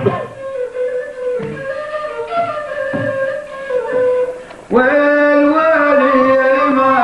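Arab folk music: a long-necked stringed instrument plays a melody over goblet-drum strokes, then about five seconds in a man's singing voice comes in on a long held note.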